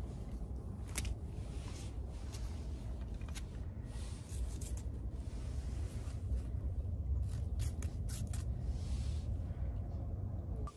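Light scratches and rustles of a cat batting and rolling on concrete at a wand toy, as short scattered clicks over a steady low wind rumble on the microphone.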